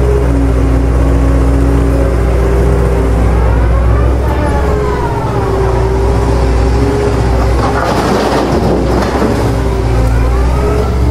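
Steady low diesel-type heavy-machinery engine sound, like a truck or excavator running, with a whine that rises and falls about four seconds in and again near the end.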